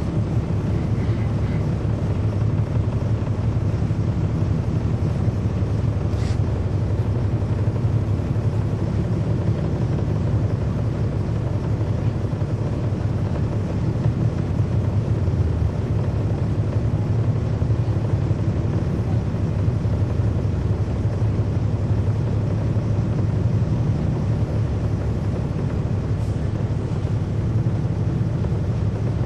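Cummins ISL9 diesel engine of a 2009 NABI 416.15 transit bus heard from on board, running with a steady low rumble that holds an even pitch.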